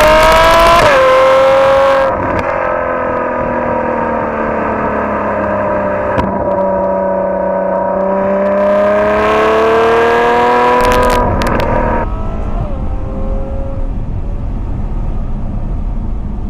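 Ferrari F12 Berlinetta's naturally aspirated front-mounted V12 running under way, heard loud at the twin tailpipes with its exhaust valves held open by disconnected vacuum pipes. The pitch drops about a second in, holds steady, then climbs a little. About twelve seconds in it turns quieter, heard from inside the cabin over low road rumble.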